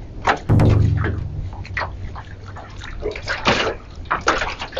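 Choppy sea water slapping and splashing close by in irregular bursts, with a heavy low thump about half a second in.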